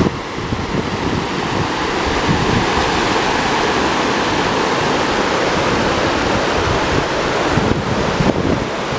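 Mountain river rushing over granite cascades: a steady roar of running water, with wind buffeting the microphone in low gusts.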